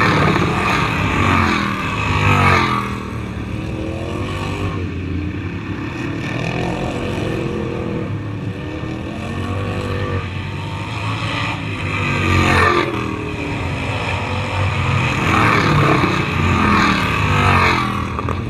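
Racing lawn mower engines running at high revs, several going past one after another, their pitch sweeping up and down as each passes.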